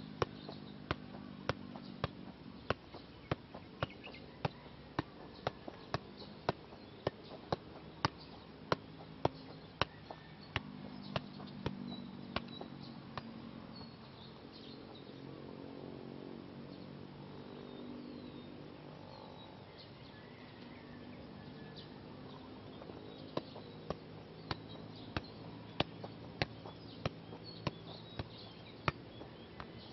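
Football being juggled: a steady run of sharp taps from the ball on foot and knee, about one every half to two-thirds of a second. The taps stop about 13 seconds in and start again about ten seconds later.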